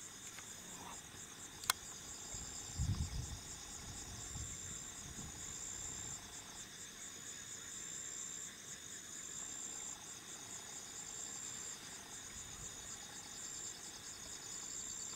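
Night insect chorus: high-pitched trilling in repeated phrases, some pulsed and some held steady. A single sharp click comes just under two seconds in, and a short low rumble about three seconds in.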